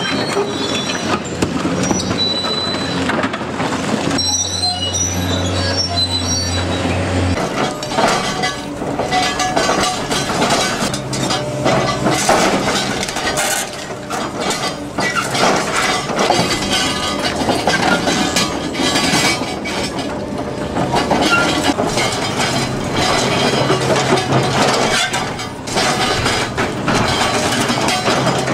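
Heavy metal scraping with high squeals from an excavator attachment grinding over broken concrete and steel. Partway through it gives way to the crunching, grinding and clinking of an OKADA hydraulic concrete pulverizer crushing reinforced concrete.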